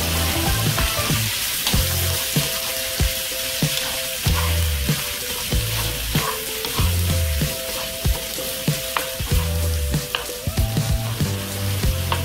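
Seafood pieces sizzling in oil in a nonstick frying pan. A wooden spatula stirs them, with short clicks and scrapes against the pan scattered throughout.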